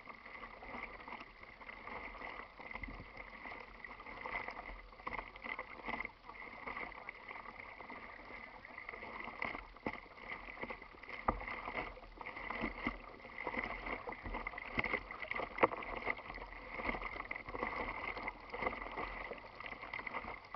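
Water lapping and splashing against the hull of a plastic kayak as it is paddled across choppy water, in an uneven wash with a few sharp knocks about halfway through.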